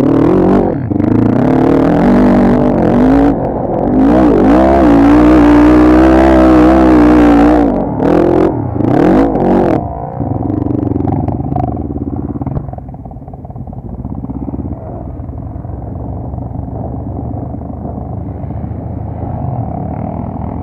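ATV engine revving hard, its pitch rising and falling, loudest in the first half. From about ten seconds in it settles to a steadier, quieter running sound.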